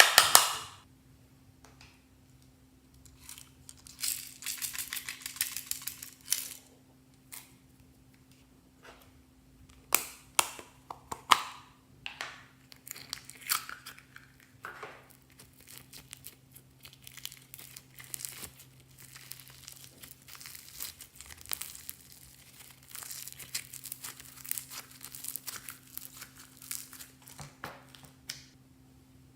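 Slime being squished and stretched by hand, giving irregular sticky clicks, pops and crackles in short clusters with pauses between, over a faint steady hum.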